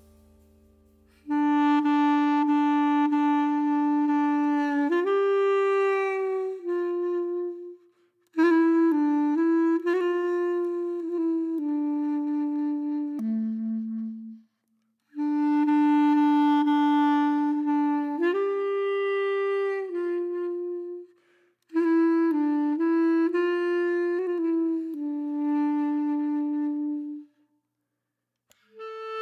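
Background music: a single melody instrument playing slow phrases of long held notes, four phrases separated by short pauses.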